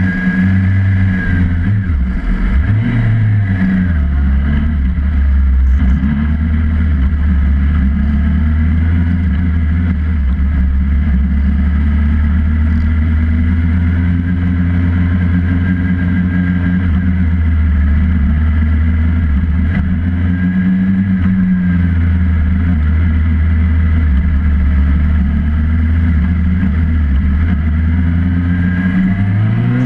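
Motorcycle engine running close to the microphone, mostly at a steady idle, with a few brief shifts in engine speed and a rise in revs near the end as the bike pulls away with the group.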